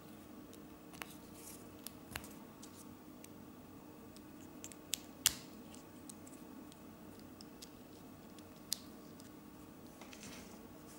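Faint plastic clicks and rubbing of small Lego Technic pieces handled and fitted together by hand, with one sharper click about five seconds in and another near the end.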